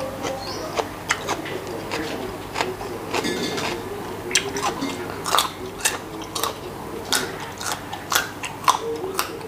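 Raw carrot sticks being bitten and chewed close to the microphone: a run of crisp crunches that comes thicker from about halfway through.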